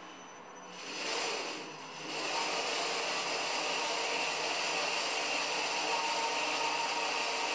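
Homemade 2x72-inch belt grinder starting up with its abrasive belt running over the small-wheel attachment and the polyurethane idler wheel: a brief swell about a second in, then a steady rushing hiss with a faint whine from about two seconds in.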